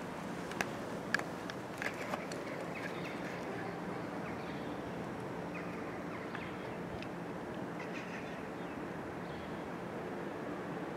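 Steady outdoor background noise with a few sharp clicks in the first two seconds and faint, scattered bird chirps.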